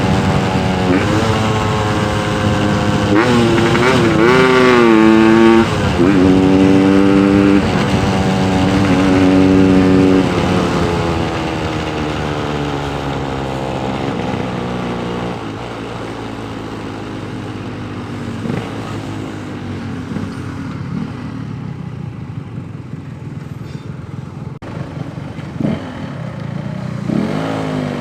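Yamaha RX-King two-stroke single-cylinder motorcycle engine under way, revving up hard and holding high revs for the first ten seconds. It then eases off and runs at lower revs, quieter.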